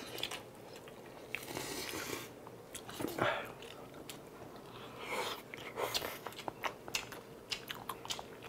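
Close-miked eating: mouths chewing and biting into spicy tteokbokki rice cakes and crisp fried seaweed rolls, with many small clicks and taps of spoon and chopsticks on plates and containers.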